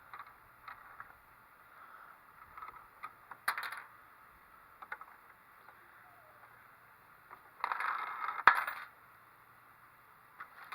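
Coins and Lego plastic parts rattling and clicking in a jammed Lego coin mechanism as it is cleared. There are scattered small clicks, a short rattle about three and a half seconds in, and a longer rattle near the end that finishes in one sharp click.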